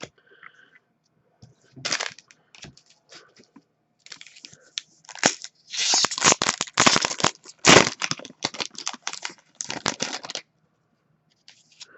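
Plastic-foil trading-card pack wrapper being torn open and crinkled in the hands, with a dense run of sharp crackling from about four seconds in that stops about a second and a half before the end.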